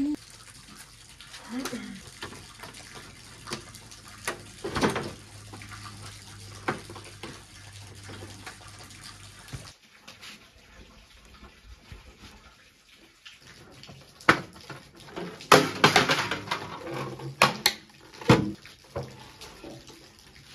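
Scattered metallic clicks, clanks and rattles of tools and motorcycle body parts as a Bajaj Pulsar's seat and fuel tank are unbolted and taken off. The clanks are densest and loudest in the last several seconds, and a faint steady low hum runs under the first half.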